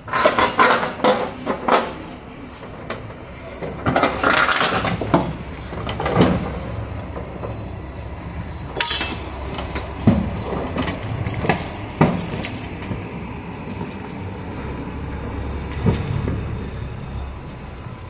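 Ratchet strap being worked by hand: metallic clicks and rattles from the ratchet buckle and the strap, a quick run of them at the start, a dense clatter about four seconds in, then single clicks spread out. A steady low rumble runs underneath.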